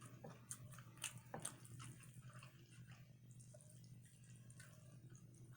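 Faint chewing with wet mouth clicks from someone eating, the clicks bunched in the first two seconds and sparser after, over a low steady hum.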